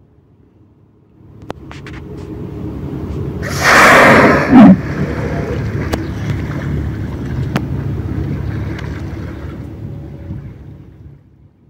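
A humpback whale surfacing and blowing: a loud whooshing exhale about three and a half seconds in, lasting about a second, cut off by a short inhale. Around it a rushing noise swells from about a second in and fades near the end.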